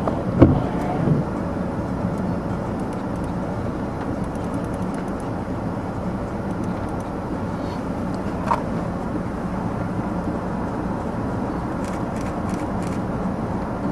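Steady vehicle engine idling, an even rumble with a constant low hum, and one short click about eight and a half seconds in.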